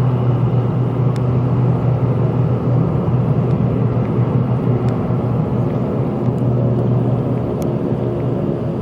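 Cessna 208EX Grand Caravan's single Pratt & Whitney PT6A-140 turboprop and propeller at takeoff power: a loud, steady drone with a strong low hum, easing slightly near the end.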